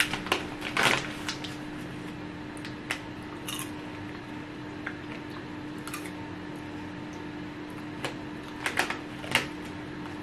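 Snack bag of white cheddar popcorn crinkling as a hand reaches in, then quiet chewing with a few short crinkles and rustles, more of them near the end, over a steady low hum.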